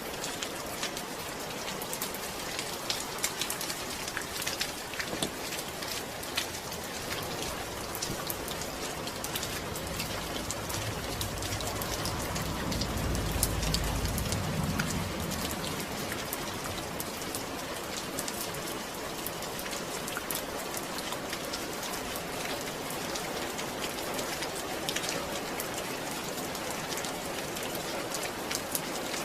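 Steady rain falling, with many individual drops heard as sharp ticks. A low rumble swells and fades about halfway through.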